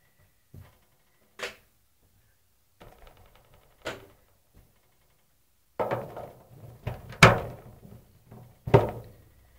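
A few scattered knocks and thuds, then a busier stretch of rubbing and knocking from about six seconds in, with two sharp, loud thumps near the end.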